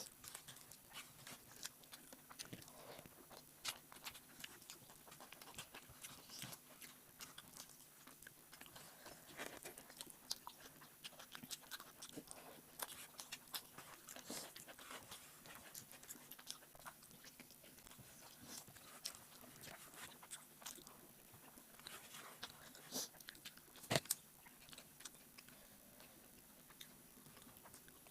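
Eating sounds of a meal of rice and egg curry: chewing, biting and mouth noises with many small scattered clicks, and one sharper click near the end.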